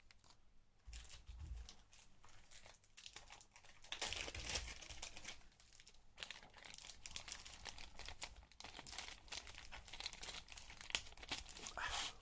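Thin clear plastic bag crinkling in irregular crackles as a punched cardboard token sheet is handled and slid out of it, loudest about four seconds in.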